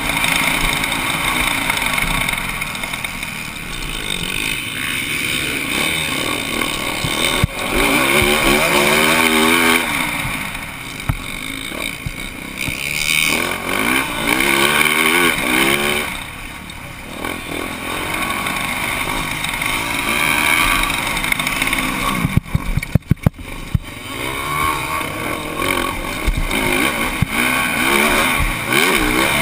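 Motocross bike's engine revving hard, its pitch climbing again and again as the rider accelerates along the dirt track, heard from a helmet camera with wind rushing over the microphone. The engine eases off briefly about two-thirds of the way through, with a quick burst of sharp knocks soon after.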